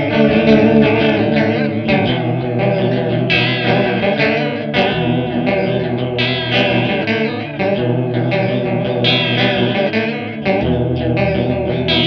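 Fender Jaguar electric guitar on its bridge pickup playing a riff through a Drunk Beaver JellyFish chorus pedal, a Small Clone-style analog bucket-brigade chorus. The notes shimmer and waver in pitch.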